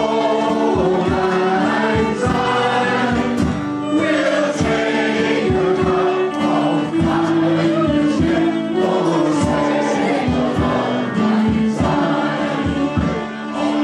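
Live Scottish folk music from acoustic guitar, fiddle and bodhran, the bodhran keeping a steady beat, with voices singing the tune.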